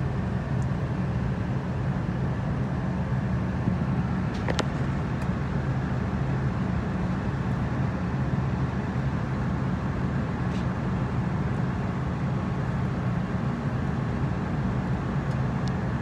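AGCO Rogator RG1300C sprayer's engine running with a steady low drone, heard inside the cab. One short click about four and a half seconds in.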